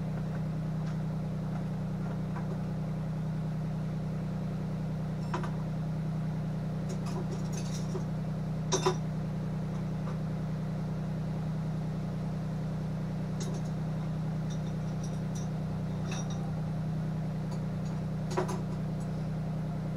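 Steady low hum of a switched-on Hobart MIG welder, with a few light metallic clinks scattered through it, the loudest about nine seconds in.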